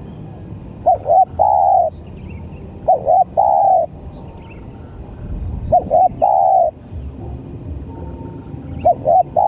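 Spotted dove cooing: four calls about every two and a half seconds, each two short quick notes followed by one longer drawn-out coo.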